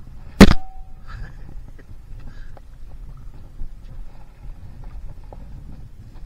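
Low rumble of wind on the microphone, broken about half a second in by one sharp, loud knock that rings briefly.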